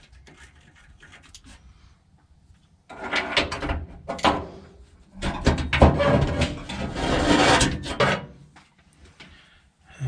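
Rubbing and scraping of a B&M floor shifter assembly being worked against the truck's floor pan during fitting. It comes in two spells, a shorter one about three seconds in and a louder, longer one from about five to eight seconds, after a few faint clicks.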